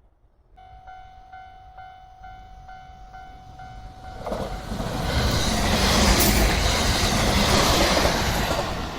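A railway level-crossing warning bell starts ringing about half a second in, repeating about twice a second. From about four seconds in, a train passes close by, and the rising rumble and rush of its wheels on the rails drowns out the bell.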